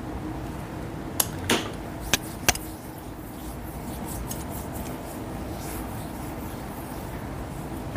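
A few sharp clicks and a brief rub from a primer container and its cap being handled, four in all between about one and two and a half seconds in, over a steady low room hum.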